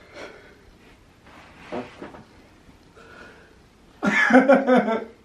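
Faint breathing and effort noises, then about four seconds in a loud, wordless outburst of a person's voice lasting about a second, a strained cry during an arm-wrestling bout.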